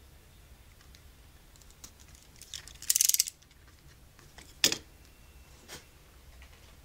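A utility knife finishing a cut through thick leather on a cutting mat, then the knife being handled: a quick run of rapid clicks about three seconds in, and a single sharp tap about a second and a half later.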